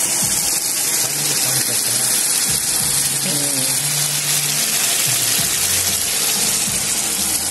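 Chicken Manchurian sizzling on a hot sizzler platter as it is served: a loud, steady sizzle.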